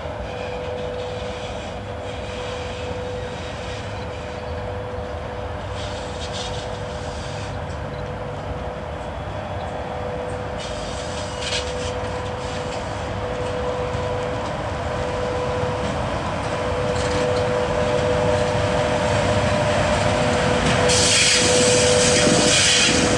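VL80S twin-section electric locomotive approaching with a freight train, giving a steady hum over the rumble of the train. It grows louder as it nears, and about 21 seconds in the noise of wheels on the rails rises sharply as the locomotive draws level.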